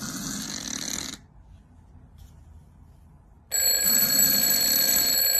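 A short burst of noise, then a pause, then a bell ringing continuously from about three and a half seconds in.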